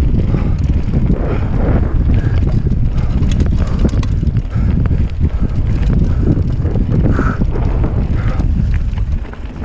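Wind buffeting the microphone of a handlebar-mounted action camera on a mountain bike riding fast down a rocky gravel trail, with tyres crunching over stones and the bike rattling in many short knocks. The level dips briefly near the end.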